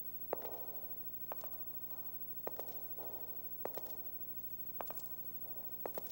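Slow footsteps on a stage floor, about one step a second, each a sharp tap, sometimes doubled, followed by a brief scuff. A steady low electrical hum runs underneath.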